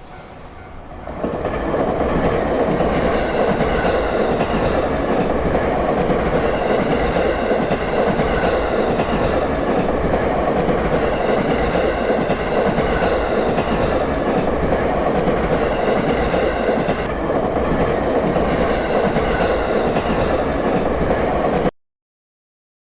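A vehicle running at a steady speed: a continuous rumble with a faint wavering whine over it, which cuts off abruptly near the end.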